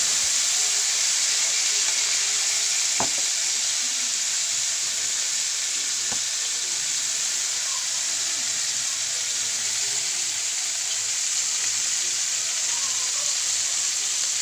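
Mud crabs with onion and garlic sizzling steadily in a hot wok. Two light clicks sound about three and six seconds in.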